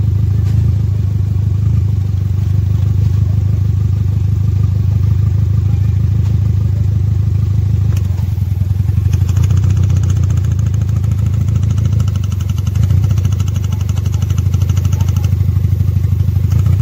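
Chevrolet Spark's four-cylinder engine idling unevenly with a misfire, which the mechanic traces to spark plugs on cylinders 2 and 3. About nine seconds in, a rapid fine ticking joins the engine note.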